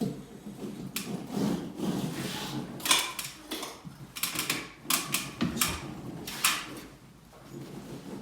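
Wallpaper being worked by hand: irregular scraping and rustling strokes, several of them short and sharp, with a quieter pause near the end.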